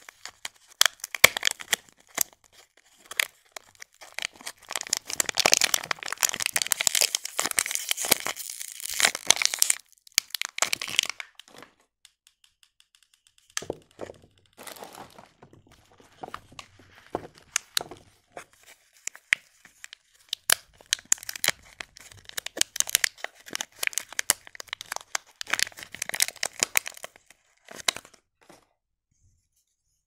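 Clear cellophane wrap crinkling and tearing as it is pulled off bars of soap by hand. The sound comes in two long spells of dense crackling, with a quieter stretch of scattered clicks between them.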